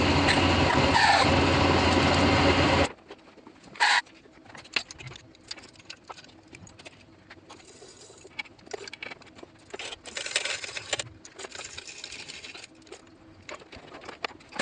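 Hand work under a car's hood: a loud, steady whirring noise for about three seconds that cuts off suddenly, then scattered light clicks, clinks and short rattles of tools and engine-bay parts being handled.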